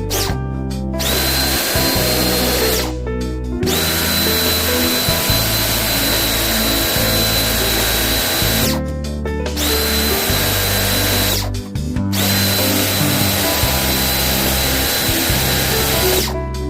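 A motor-driven tool runs in four long bursts, each a steady hiss with a high whine that rises briefly as it starts, switching off abruptly between bursts. Guitar background music plays underneath.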